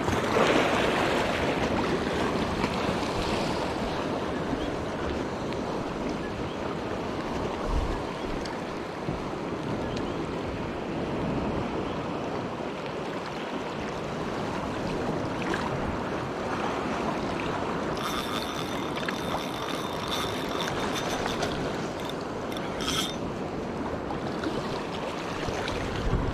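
Small sea waves washing against a rocky shoreline, with wind on the microphone. About two-thirds of the way through there is a brief high-pitched whir.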